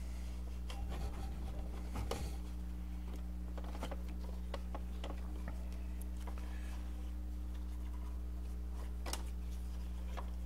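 Light rubbing, scratching and scattered clicks as hands and a sleeve work a new serpentine belt around the accessory-drive pulleys, with the engine off. Under it runs a steady low electrical hum.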